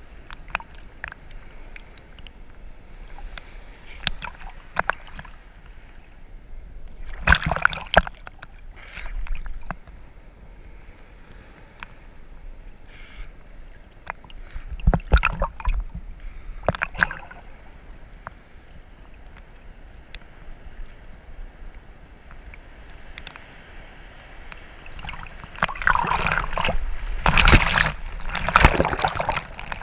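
Sea water sloshing and splashing right at the surface, with short splashes now and then. Near the end comes a longer, louder wash of water as a wave breaks over.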